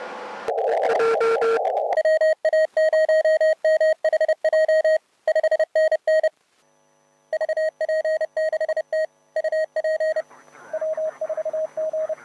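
Amateur radio Morse code (CW): a single clear tone keyed on and off in dots and dashes. It is preceded by a second or so of hiss through a narrow receiver filter. Near the end the keyed tone turns fainter over band noise.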